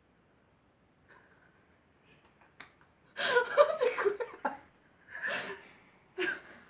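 Near silence for about three seconds, then girls break into laughter in several loud bursts.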